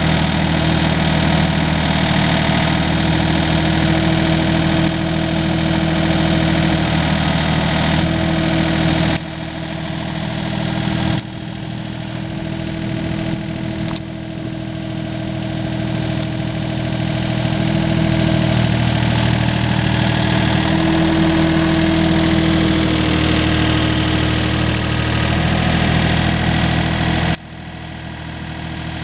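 Multione SL835 mini loader's engine running steadily at work with an Uemme E24 backhoe attachment; the sound drops abruptly in level about nine seconds in, again a couple of seconds later, and near the end.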